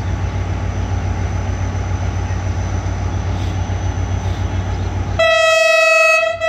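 Pakistan Railways HGMU-30R diesel locomotive idling with a steady low rumble, then about five seconds in its horn sounds: one loud, steady, single-pitched blast with a brief break near the end, given as the train gets the green signal to depart.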